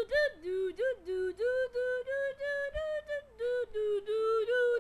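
A high-pitched voice singing a tune in short, separate syllables, a few notes a second.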